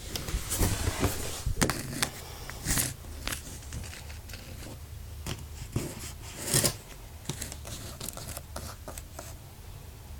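Handling noises: irregular clicks, scrapes and rustling, busiest in the first three seconds with a louder scrape about six and a half seconds in, over a low steady hum.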